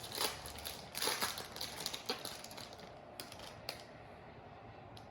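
Foil wrapper of a Topps Chrome baseball card pack crinkling and crackling in the hands as the pack is opened and the cards handled, dense for the first couple of seconds, then a few separate sharp clicks before it goes faint.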